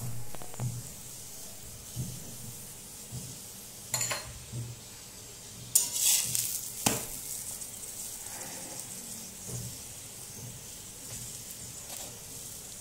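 Stuffed paratha sizzling in oil on a hot iron tawa, a steady frying hiss. A spatula clicks and scrapes against the griddle a few times, about four, six and seven seconds in.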